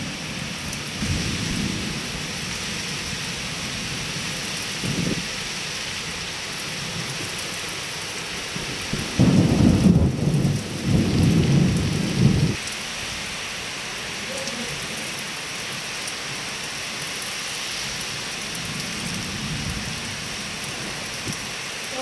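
Heavy rain from a pre-monsoon nor'wester (kalbaisakhi) thunderstorm, falling as a steady hiss. Low rumbles come through it, loudest from about nine to twelve seconds in.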